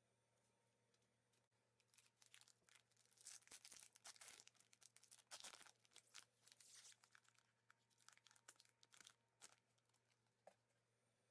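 Foil trading-card pack wrapper being torn open and crinkled by hand. It makes a faint, irregular run of crackles that starts about two seconds in, is busiest in the middle and trails off near the end.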